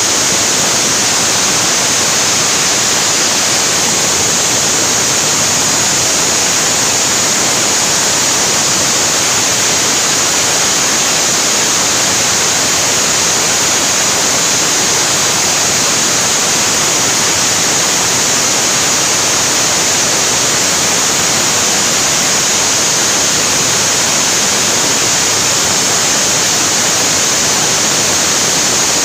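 Loud, steady rushing hiss of compressed air and water blasting out of a borewell being drilled with an air-compressor rig, unbroken throughout.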